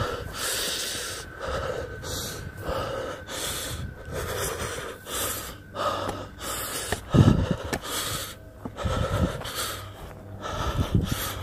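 A man breathing hard and fast, a quick series of heavy puffed breaths, while moving through tall grass and weeds, with a few low thuds along the way.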